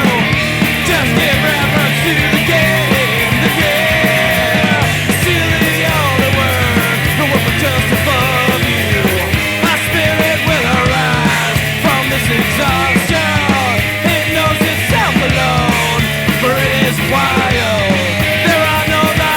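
Rock band playing at full tilt: drums, bass and electric guitar, with a melody line that bends up and down in pitch over a steady bass.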